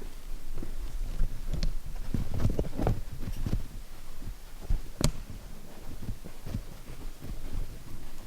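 Footsteps going up a staircase: a run of dull, uneven thumps, with a single sharp click about five seconds in.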